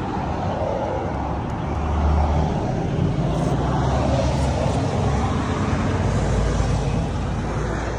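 Road traffic noise: a steady rumble of vehicles going by, swelling a little about two seconds in and again near the end.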